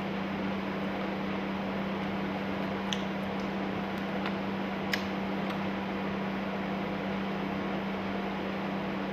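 Steady mechanical hum over an even hiss, like a small appliance motor running, with a few faint light clicks about three and five seconds in.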